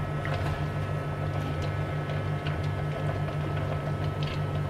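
Steady whirring hum of a kitchen appliance fan, with a few light taps of wooden chopsticks moving beef ribs in a stainless steel wok of simmering water.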